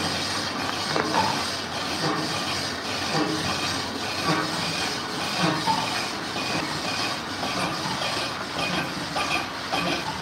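A large engine lathe running, with its big faceplate spinning: a steady mechanical running noise with an uneven clattering rattle.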